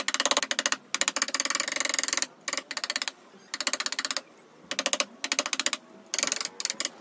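Steel Stanley bench chisel chopping and levering waste wood out of a notch in a clamped hardwood post: rapid, even clicking taps in about six short bursts, with brief pauses between.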